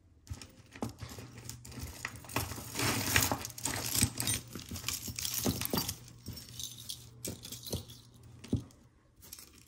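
Gold-tone metal link chain necklace jingling and clinking as it is handled and pulled out of a pile of jewelry, with many small clicks of the links. It is busiest a few seconds in.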